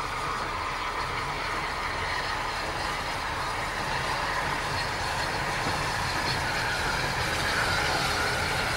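Steam locomotive 34039, a rebuilt BR 'West Country' class pacific, rolling slowly past with its train. It makes a steady rushing noise over a low rumble that grows slightly louder toward the end.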